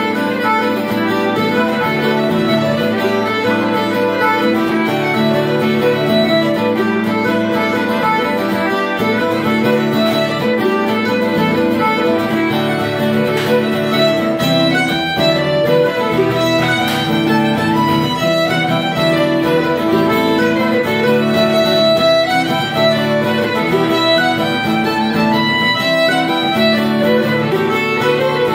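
Live acoustic folk band playing a tune: fiddle on the melody over strummed acoustic guitar and a mandolin-type plucked string instrument, with a hand-held frame drum.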